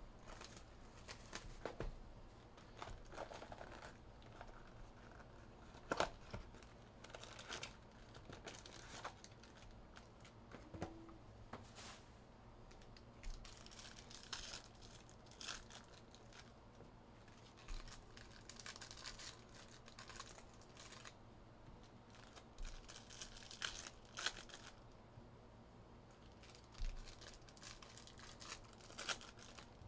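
Faint, intermittent tearing and crinkling as a Panini NBA Mosaic hobby box of trading cards is unwrapped and its card packs are torn open, with scattered small clicks and rustles.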